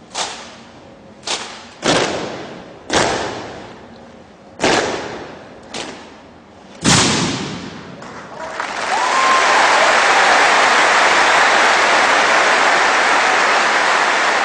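Seven loud, sharp hits, each ringing out for a moment, unevenly spaced. About eight seconds in, a crowd breaks into loud, sustained applause.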